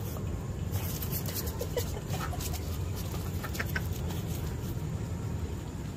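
Domestic ducks giving a few short, soft calls, scattered through the middle, over a steady low hum.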